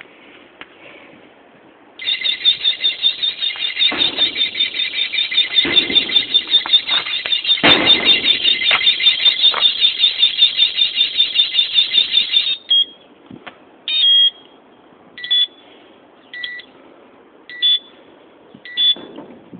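Envatech Shadow bike alarm sounding: a loud, fast-warbling electronic siren starts about two seconds in and runs for about ten seconds, then cuts off. Short double-tone chirps follow about once a second.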